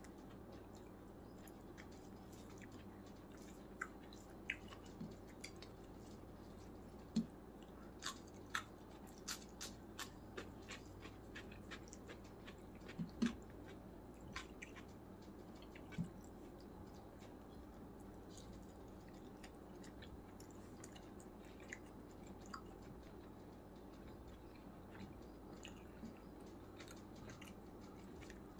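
Eating sounds from a plate of chicken biryani eaten by hand: chewing with scattered sharp, wet clicks, thickest in the first half and sparse later, over a faint steady hum.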